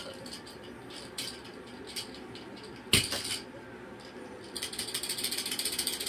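A cockatoo rummaging with its beak in a plastic bin of wooden blocks and toys: scattered clicks and knocks, a louder knock about three seconds in, then a fast rattling run of clicks for the last second and a half.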